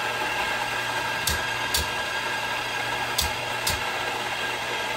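Electric coffee grinder grinding coffee beans: a steady motor whir with grinding noise. Four sharp clicks cut through it, in two pairs about half a second apart.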